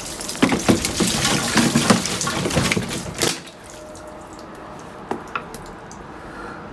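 Water poured from a large plastic bottle into a metal boiler flue pipe, splashing and running through it for about three seconds, then stopping. A couple of light knocks follow as the pipe is handled.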